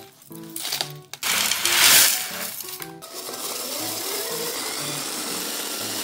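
Electric hand-blender chopper grinding dried eggshells: a loud crunching clatter of shells, loudest about two seconds in, settling into a steady motor whir with rattling shell pieces. Light background music runs underneath.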